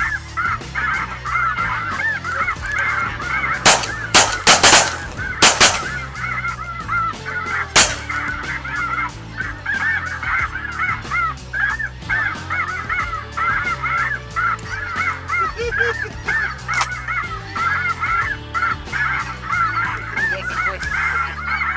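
A large flock of light geese (snow geese) calling constantly, many overlapping honks. A quick volley of shotgun shots breaks in about four to six seconds in, with one more shot near eight seconds.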